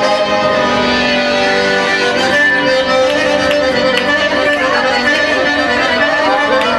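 Loud music: a melody of long held notes that slide in pitch near the end, with a few sharp claps or clicks.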